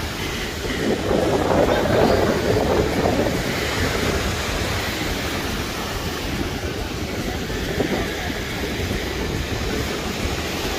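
Ocean surf breaking and washing up a sandy beach, a steady rushing noise that swells for a couple of seconds about a second in. A low rumble of wind on the microphone runs under it.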